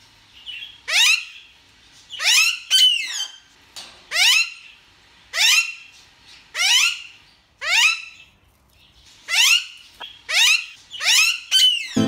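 Green parakeet screeching over and over: about ten harsh calls, each sweeping steeply down in pitch, roughly one a second.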